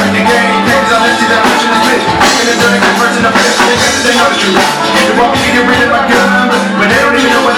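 Live band music played loud with a steady beat: a hip-hop song performed with live drums and DJ scratching.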